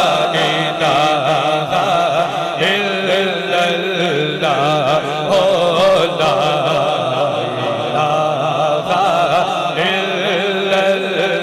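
A man singing a Punjabi naat into a microphone over a PA, drawing out a long, wavering melodic line with no clear words. A steady low drone runs beneath it.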